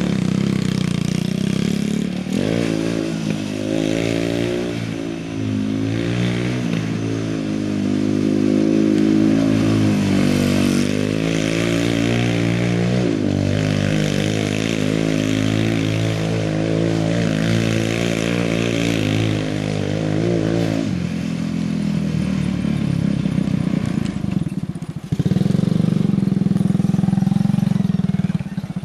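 Honda TRX200SX single-cylinder four-stroke engine in a home-built dune buggy, revving up and down again and again as the buggy spins donuts on loose dirt. About twenty seconds in the revs drop to steadier, lower running, and it runs louder and steady for the last few seconds.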